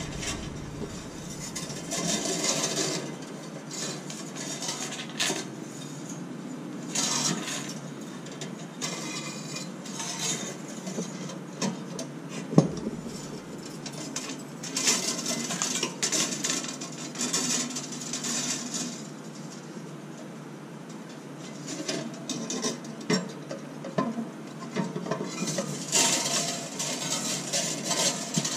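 Thin nichrome wire being threaded through the holes of an ice maker's stainless-steel cutting grid and drawn through by hand: irregular scraping and light metallic clinks against the frame, with one sharp tap about halfway through.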